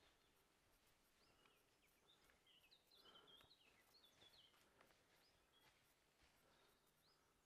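Near silence in woodland, with faint bird chirps, short rising and falling notes, between about one and five seconds in.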